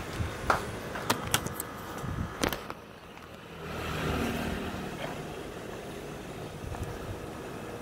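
A few sharp clicks and knocks in the first couple of seconds, then a road vehicle passing by, swelling and fading about four seconds in, over a steady background hum.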